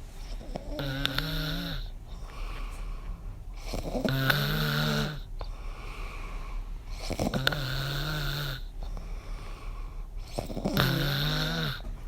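A man snoring really badly in his sleep: four loud, pitched snores about three seconds apart, each lasting about a second, with softer breathing between them.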